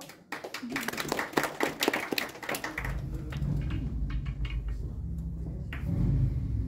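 A short round of applause from a small audience, a dense patter of hand claps lasting about two and a half seconds, then fading into a low steady rumble with a few scattered clicks.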